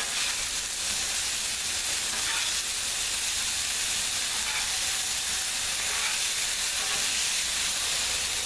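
Burger patties frying on a Blackstone flat-top griddle: a steady sizzle with small scattered crackles.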